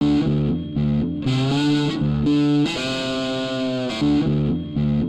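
Distorted electric guitar music: a repeating riff of held chords that starts abruptly.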